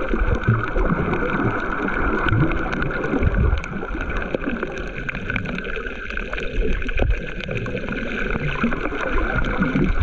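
Underwater sound through an action camera's built-in microphone: a muffled, sloshing rumble of water moving against the camera as it glides over a reef, with many scattered faint clicks. It drops a little in level about three and a half seconds in.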